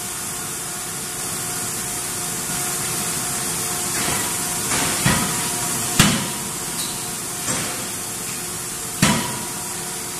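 Anyang CNC closed-die forging hammer striking a red-hot auto-part blank. A steady machinery hum runs throughout. From about four seconds in, five or six sharp, ringing blows of varying force land about a second apart, the loudest about six seconds in.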